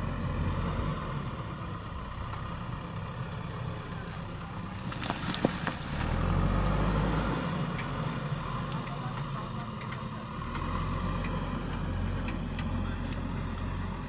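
JCB 3DX backhoe loader's diesel engine running as the machine drives and turns with a loaded front bucket, the engine note swelling about six seconds in and again after ten seconds. A few sharp knocks sound shortly before the first swell.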